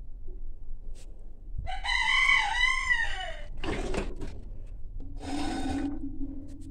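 A rooster crows once, a single crow of about two seconds with a rising-and-falling pitch. Near the end, a cake pan scrapes across a metal oven rack as it is pushed back.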